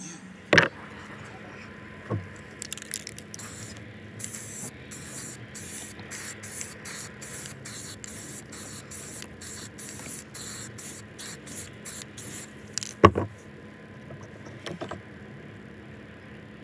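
Aerosol spray-paint can sprayed onto the water for a hydro dip in a fast run of short hissing spurts, about two or three a second. A sharp knock comes about half a second in, and a louder knock near the end.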